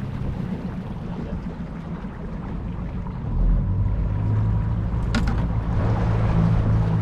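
Small boat's outboard motor running steadily at low speed, getting louder about three seconds in. A short knock about five seconds in.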